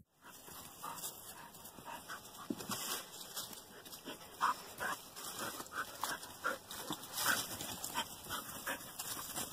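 Puppy whimpering in short, repeated squeaks, with brief rustles and clicks from dry leaves underfoot.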